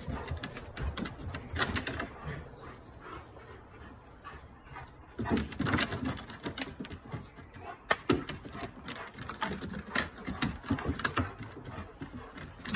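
Two German shepherds playing on decking: rapid clicking and scuffling of their claws on the boards, busiest in bursts about halfway through and again a little later, mixed with short dog vocal sounds.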